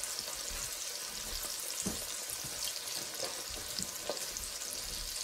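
Two beef steaks frying in hot butter in a porcelain-enamelled pan: a steady sizzling hiss with scattered small pops and crackles.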